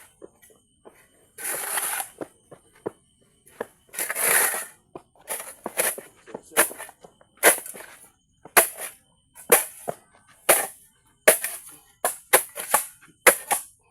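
Footsteps crunching through dry leaves and grass, a step about every second, coming a little quicker near the end.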